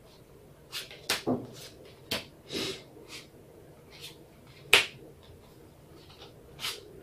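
Playing cards being laid one at a time onto a hard floor: about a dozen short snaps and taps, the sharpest just under five seconds in.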